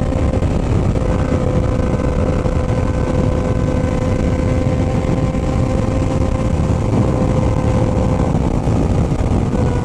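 Motorcycle engine running at a steady speed while riding, under a constant low rush of wind and road noise, its pitch held level.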